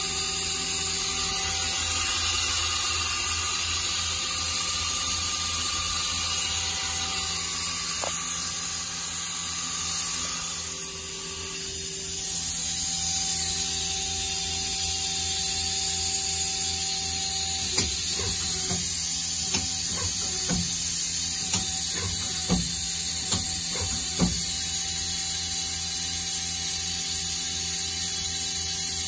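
Mazak QTN-200MY-II CNC turning center running: a steady high-pitched motor whine that dips and settles on a lower tone about eleven seconds in, as the speed changes. A series of sharp clicks follows in the second half.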